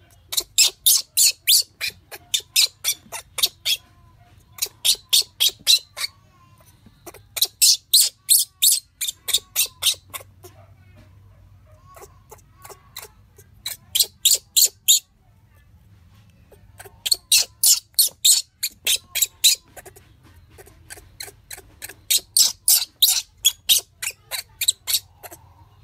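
Rapid, high-pitched squeals from a baby monkey crying in distress, about five or six a second in bouts of one to two seconds, repeated with short pauses between bouts.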